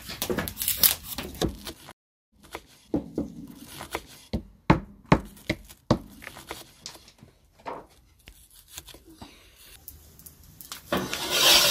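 Irregular knocks and clicks of wood and utensils being handled, with a louder rasping scrape near the end.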